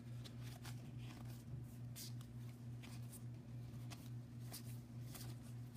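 Trading cards being flipped through by hand: soft, scattered flicks and slides of card stock, over a steady low hum.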